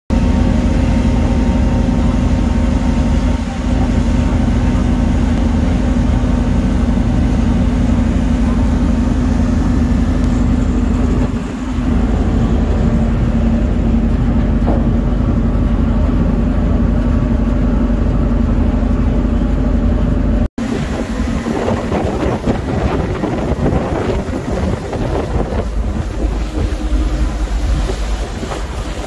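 Tugboat engine running steadily with a low drone, wind buffeting the microphone. After a sudden break about two-thirds of the way through, the sound turns to a rougher rush of wind and water over the engine.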